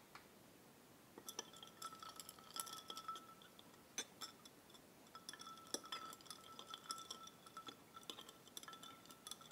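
Glass stirring rod clinking against the inside of a glass beaker as a suspension is stirred during an azo coupling: a rapid, uneven run of light clinks starting about a second in, with the glass ringing faintly.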